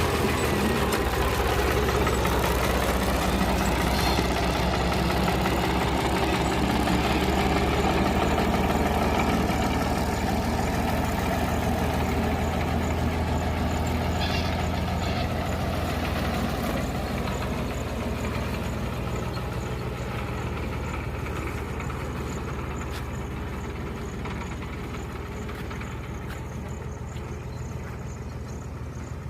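Farmtrac 70 HP tractor's diesel engine running steadily while the tractor works a rear-mounted dozer blade, levelling soil. The engine gradually gets quieter over the second half.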